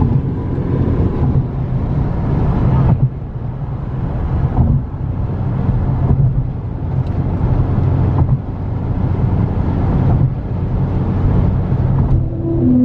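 Car travelling at highway speed, with heavy low road rumble and wind noise that swells and drops every couple of seconds in strong gusty wind.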